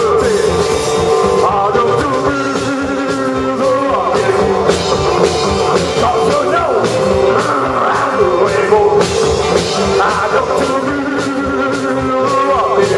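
Live rockabilly band playing an uptempo rock and roll number: two electric guitars, electric bass and drum kit driving a steady beat, loud and continuous.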